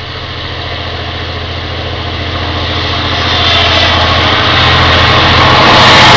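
A Taiwan Railways R100-series diesel-electric locomotive approaching on the next track with its engine running, growing steadily louder and drawing alongside near the end.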